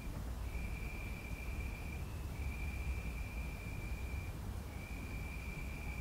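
Crickets in a tree trilling on one high pitch in long trills of about two seconds, each broken by a short pause, over a steady low rumble.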